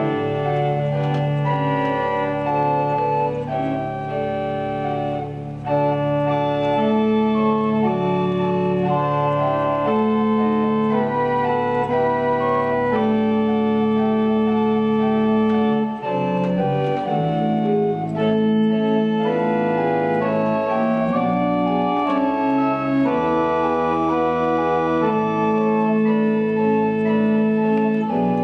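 Church organ playing a slow prelude of sustained chords, with short breaks between phrases about five and sixteen seconds in.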